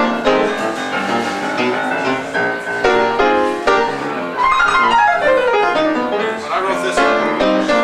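Piano playing a blues number with fast runs, including a quick descending run about five seconds in.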